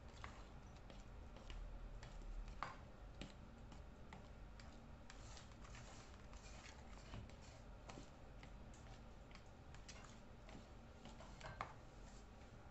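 Spoon stirring thick banana bread batter in a mixing bowl: faint, irregular clicks and scrapes of the spoon against the bowl, with a couple of louder knocks.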